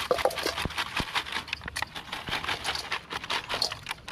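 Live shrimp shaken out of a plastic-bottle trap into a metal basin: a dense, irregular patter of small taps and clicks as they drop and flip against the metal and the plastic.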